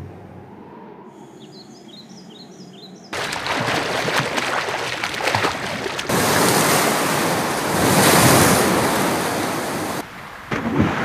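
A run of short bird chirps over a soft hush, then about three seconds in a sudden loud rush of water as a boat's hull cuts through the sea, its wake spraying, growing louder about six seconds in.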